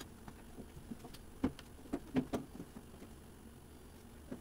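Light handling noises on a plastic cutting board: a few soft taps and clicks, bunched around the middle, as sliced ham is picked up and laid out by hand.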